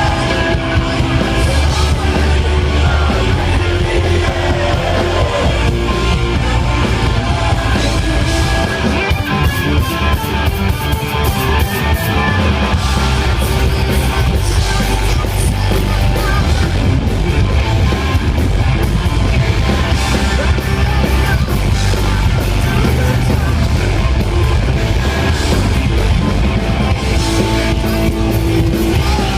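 Hard rock power trio playing live: loud electric guitar, bass and drums, with singing.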